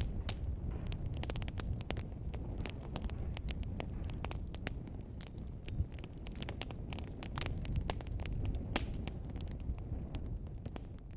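Wood fire in a fireplace crackling: frequent sharp, irregular pops and snaps over the steady low rumble of the flames, with one louder pop about six seconds in.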